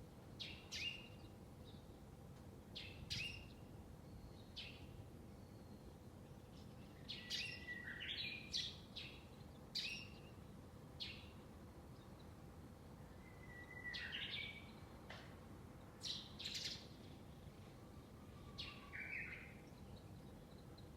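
Wild birds chirping and calling in short, scattered notes, a dozen or so, some quick pitch sweeps, over a faint steady low background.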